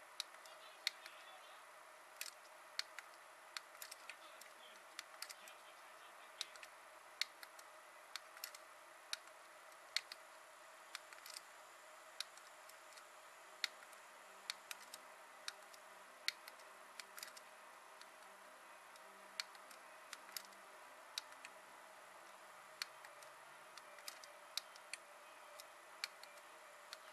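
Small buttons on a FiiO E7 USB DAC headphone amplifier being pressed to step through its menu: quiet, sharp clicks at an uneven pace, roughly one or two a second, over a faint steady hiss.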